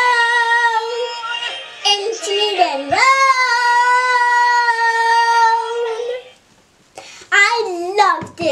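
A child singing two long, held, high 'ah' notes, each a few seconds long, then a few short sung phrases near the end.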